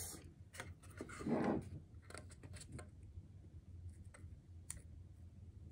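Faint scratching and scattered clicks of blue painter's tape being pulled from its roll and pressed around a small box, with a short noisier rustle about a second and a half in.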